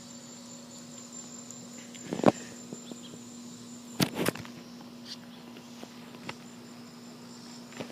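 Crickets trilling steadily on one high note, with a steady low hum beneath, broken by a few short knocks about two and four seconds in.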